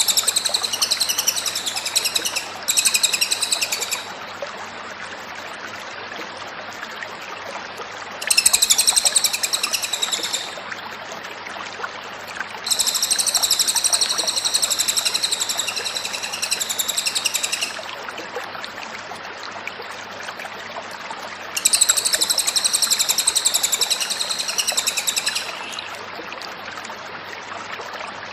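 Cililin bird singing in repeated bursts of rapid, high, wavering trills, four bouts of a few seconds each with pauses between them, over a steady background hiss.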